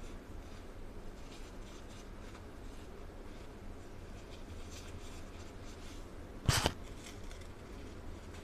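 A crumbly powdery block being crushed and rubbed apart by hand, with soft, faint crumbling and one sharp, louder crunch about six and a half seconds in.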